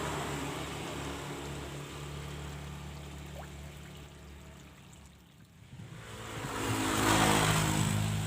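Motor engine running with a steady low hum that fades away about five seconds in, then another engine that grows louder near the end.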